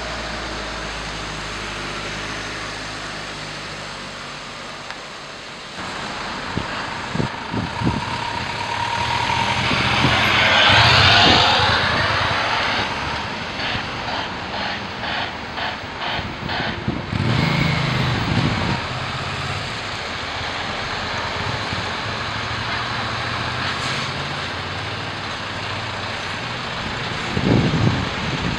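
Heavy truck tractor units hauling oversized loads driving slowly past, their diesel engines running with tyre and road noise. The sound swells to its loudest as a vehicle passes close about eleven seconds in, and a short burst of noise comes near the end.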